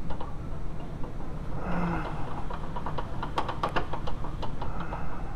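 Quick metallic clicks and rattles, bunched together about three to four seconds in, as parts of a VW A3 shifter linkage are wiggled and pulled loose by hand, over a steady low rumble.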